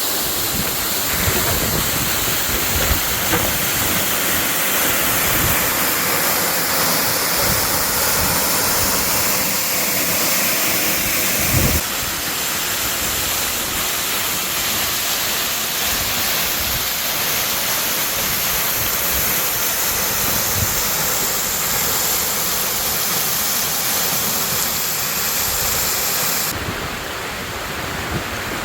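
Waterfall at Tanashita Fudo Falls: water pouring and splashing in a steady rush, its tone changing suddenly about twelve seconds in and again near the end.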